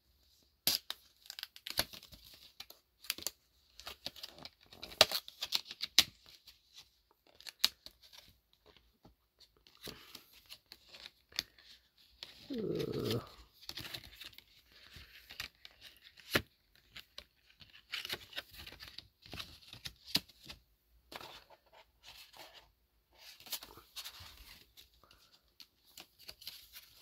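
Stiff clear plastic calendar sleeve crinkling and crackling, with irregular sharp clicks, as a calendar card is slid into it and fitted at the back.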